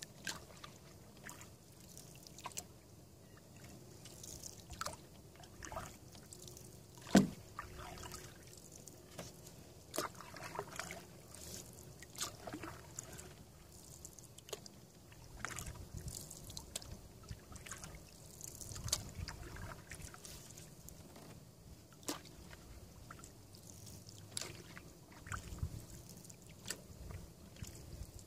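Canoe paddle strokes in calm water: soft dips, trickles and drips off the blade, with scattered small knocks and a sharp knock about seven seconds in.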